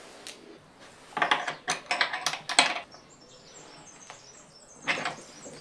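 Wrench tightening a nut onto a bolt through a steel gas-strut mounting bracket: a quick run of metal clicks and scrapes lasting about a second and a half, then one shorter burst near the end.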